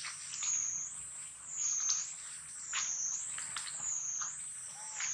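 A high-pitched insect drone that swells and fades about once a second, with a few faint clicks.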